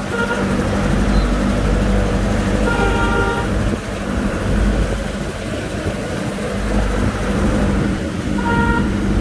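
Heavy truck engine running with a steady low rumble, and a vehicle horn honking three times: briefly right at the start, for about a second around three seconds in, and briefly again near the end.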